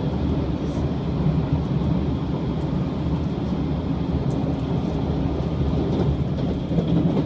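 Steady running noise inside the passenger cabin of a limited express electric train travelling at speed: a continuous low rumble of the wheels on the rails.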